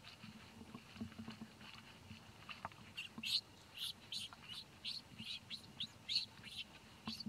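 Short high-pitched animal chirps repeated about three times a second, starting about three seconds in, over a faint steady high tone.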